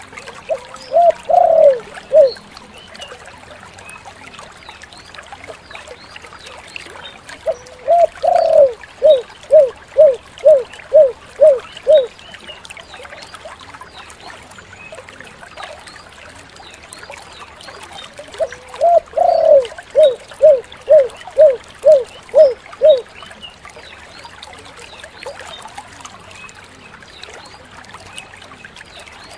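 Spotted dove (tekukur) cooing in three phrases, each a longer opening coo followed by a run of short, evenly spaced coos. The first phrase, near the start, is short. The two longer phrases, about a third of the way in and again about two thirds in, each end in about seven coos, the 'kuk 7' pattern. A faint steady hiss lies underneath.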